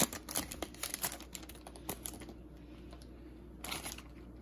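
Hockey trading cards being slid out of a just-opened pack and flipped through by hand: a quick run of light clicks and flicks over the first couple of seconds, then mostly quiet, with one brief rustle near the end.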